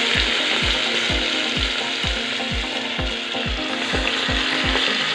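Marinated mutton and onions hitting hot oil in a pressure cooker and sizzling steadily as they are added by hand: the start of frying the meat in its spice tempering.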